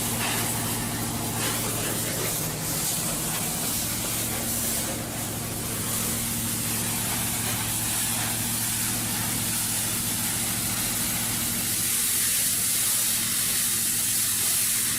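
A fire hissing and sizzling steadily, like a big steak frying, with a steady low hum underneath.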